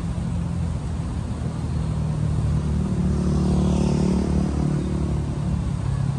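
Street traffic: a motor vehicle's engine running with a low, steady hum that swells louder about halfway through as it passes.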